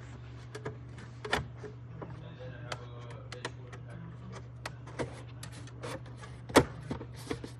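Sheet-metal top cover of a K4 transceiver being pressed and seated onto the chassis: scattered light clicks and taps of metal on metal, with one louder knock about six and a half seconds in, over a steady low hum.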